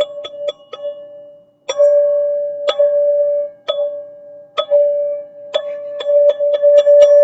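Teal ZenTube struck repeatedly, each strike ringing on one bright note. A quick run of strikes stops about a second in, then after a short pause come single strikes about once a second, and near the end quick strikes start again.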